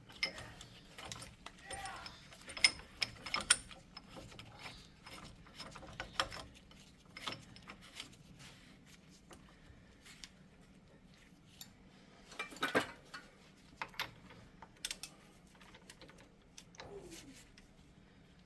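Scattered metal clicks and clanks of hand tools being moved and set against the front steering knuckle while a seized wheel hub bearing is worked out. The sharpest knocks come a few seconds in and again about two-thirds of the way through.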